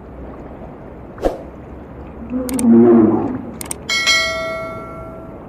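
Subscribe-button notification sound effect: two sharp mouse-style clicks, then a single bell chime about four seconds in that rings out and fades over a second and a half. Under it is steady background noise, with a short pitched sound around the middle.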